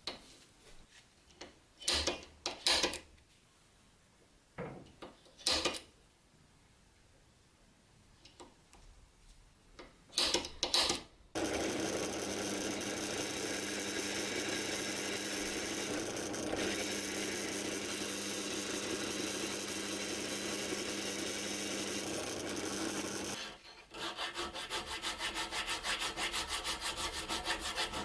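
Hand work with an abrasive or cutting tool, on wood or metal. First scattered short scrapes and knocks, then about twelve seconds of steady, even scraping, then from about two-thirds of the way in, fast, evenly repeated strokes like sawing or filing.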